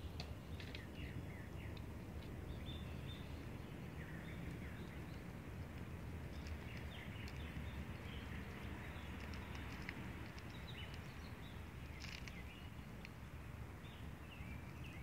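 Outdoor ambience: a steady low rumble with small birds chirping here and there, and a few sharp crackles from a small wood-and-rubbish fire burning in a metal pot, one of the clearest about twelve seconds in.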